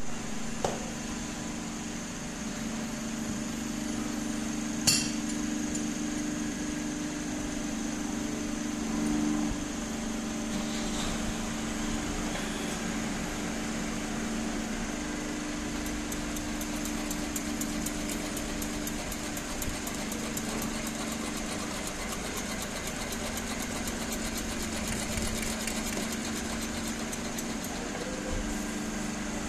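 Steady hum of running machinery, with a sharp knock about five seconds in and a fast, even high-pitched ticking that joins about halfway through.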